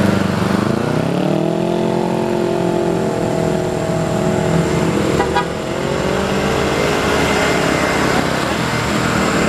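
Truck engine revving under load: its pitch dips, climbs between about half a second and two seconds in, holds steady, then falls away about six seconds in, over the noise of passing road traffic.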